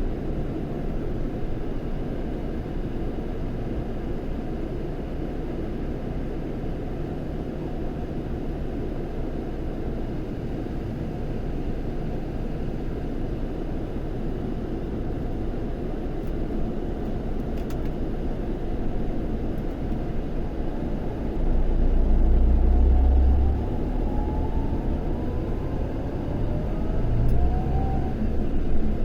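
Scania K400 coach's six-cylinder diesel engine running with a steady low rumble. About two-thirds of the way through, the low end swells for a couple of seconds. Near the end, the engine note rises in pitch as it picks up speed.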